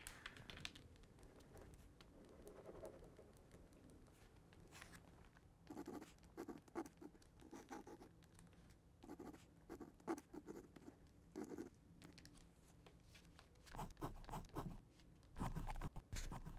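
Ballpoint pen scratching across a paper greeting card as words are written, in short clusters of strokes, with a few louder, heavier strokes near the end.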